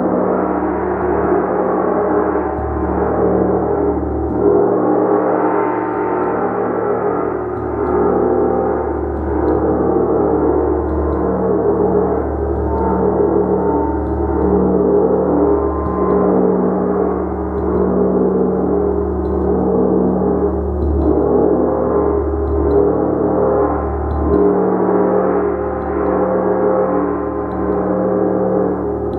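Gong played continuously with a mallet in a steady rhythm, about one swell a second. The strokes build up a loud, dense wash of overlapping ringing tones.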